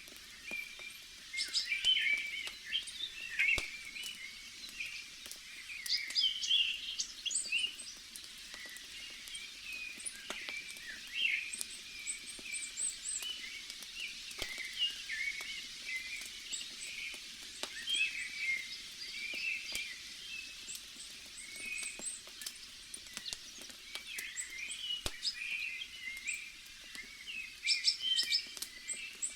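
Small birds chirping and calling almost without pause over a steady hiss of forest ambience, with a few sharp pops of a crackling campfire.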